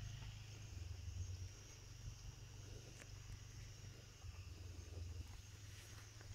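Faint, steady chorus of night insects such as crickets, over a low rumble that comes and goes, with one faint click about three seconds in.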